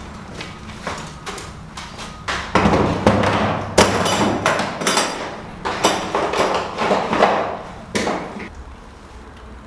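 DeWalt plastic tool case being opened and rummaged through: latches and lid clicking, tools knocking and rattling against the hard plastic. The clatter is dense and loud from a couple of seconds in and dies away near the end.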